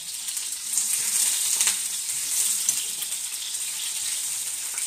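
Tomato halves frying in a pan: a steady sizzle with fine crackling that grows louder about a second in.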